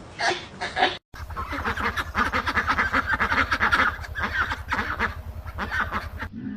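A flock of waterfowl calling over one another, many short overlapping calls at once, with a low steady hum beneath. A few separate short calls come first, then a brief break about a second in.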